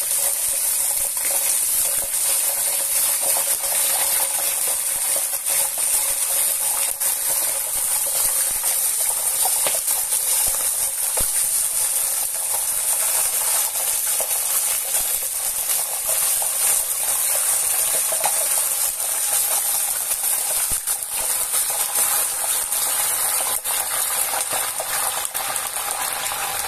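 Hot oil poured over a pork knuckle's oven-dried skin, sizzling and crackling steadily with many fine pops as the skin blisters into pururuca crackling.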